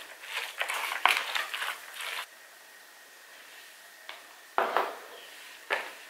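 A spoon stirring a wet mixture of grated zucchini and flour in a plastic bowl: a quick run of scraping strokes for about two seconds, a quiet pause, then two more strokes later on.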